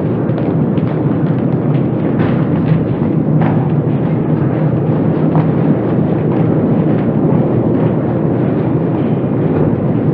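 Escalator running: a steady low mechanical rumble with scattered faint clicks and knocks.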